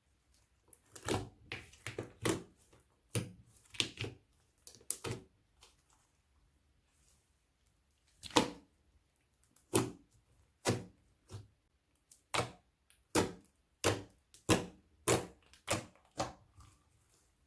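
Crunchy slime being pressed and squeezed by hand, giving about twenty short, crackling pops. They come in an irregular cluster at first, then, after a pause, at a steady pace of roughly one a second or a little faster.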